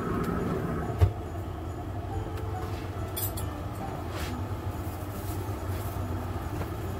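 The metal lid of a Pit Boss wood-fired pellet grill shutting with a single sharp clank about a second in, over a steady low hum. A couple of light rustles follow a few seconds later.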